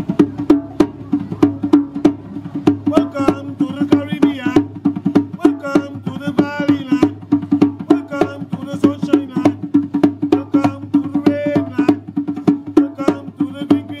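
Rope-laced hand drums played in a quick, steady rhythm, starting abruptly, with a voice singing over the drumming at times.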